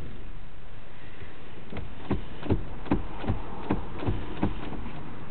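Steady cabin noise of a car being driven, with a run of soft low thumps, about two or three a second, through the middle of the stretch.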